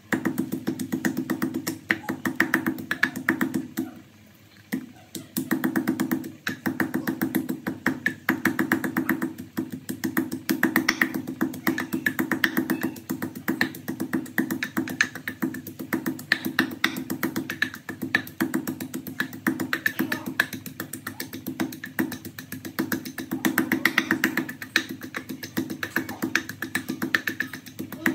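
Wooden pestle pounding garlic and red chili in a wooden mortar: fast, steady knocking, several strikes a second, with a short pause about four seconds in.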